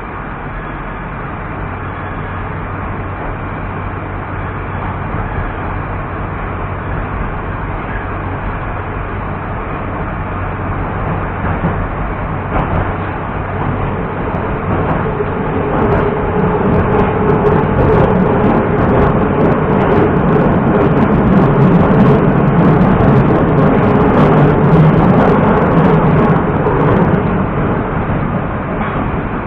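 Moscow Metro 81-765.2 train heard from inside the car as it pulls out of a station and speeds up into the tunnel. The running noise grows steadily louder, and from about halfway a dense rumble and quick rattling clicks of the wheels on the rails build up.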